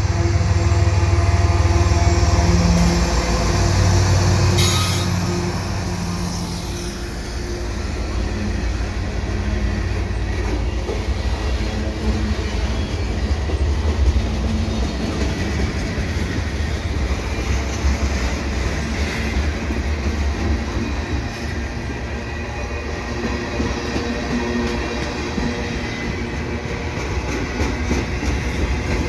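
A slow-moving CN freight train passing close by. For the first few seconds the lead GE ES44AC diesel locomotive hums and drones as it goes past. Then the freight cars roll by with a steady rumble of steel wheels on rail, regular clicking at the rail joints, and a sharp clank about halfway through.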